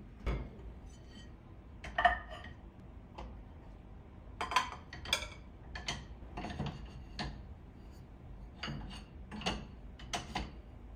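Light clicks, knocks and clinks of small hard household items being handled and set down, about a dozen at uneven spacing, the sharpest about two seconds in.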